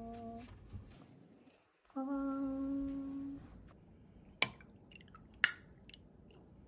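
A steady held note, then a longer, louder held note about two seconds in. Near the middle come two sharp glassy clicks about a second apart, as gin is poured over large ice balls in glass tumblers.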